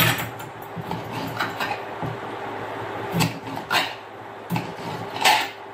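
A kitchen knife slicing a red bell pepper on a plastic cutting board: a handful of separate sharp cuts, mostly in the second half.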